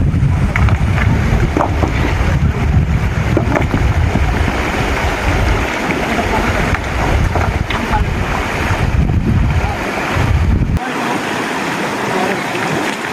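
Rushing stream water with wind buffeting the microphone; the low wind rumble cuts out sharply near the end.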